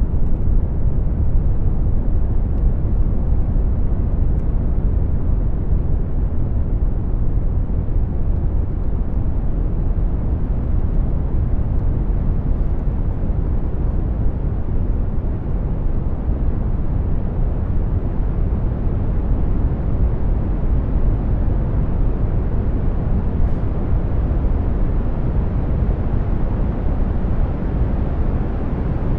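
Synthesized brown noise: a steady, deep rumbling hiss, heaviest in the low end, with no pauses or distinct events.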